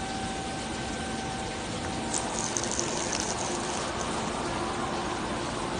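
Steady forging-shop machinery noise with a faint hum. About two seconds in, a high hiss starts and lasts about two seconds.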